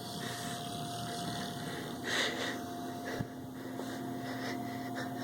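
Sleeping pit bull snoring, with one louder, noisy snort about two seconds in.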